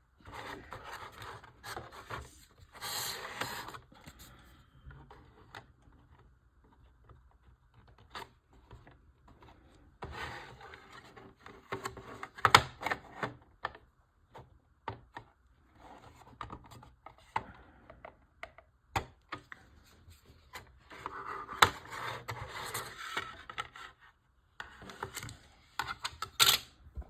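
Model kit parts being handled and fitted together by hand: irregular scraping and rubbing, with sharp clicks scattered throughout.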